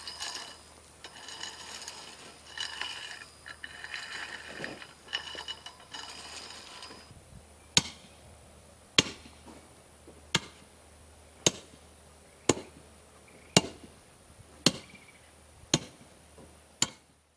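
A rake scraping through crushed granite gravel. About eight seconds in, a hand tamper starts striking the gravel base nine times, about one sharp thud a second, packing the paver base down.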